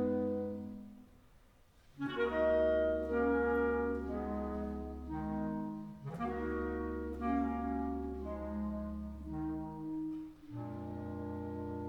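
Clarinet choir playing slow, sustained chords over long-held low bass notes. The first chord fades away, a second of near silence follows, and the ensemble comes back in about two seconds in, moving to new chords a couple more times.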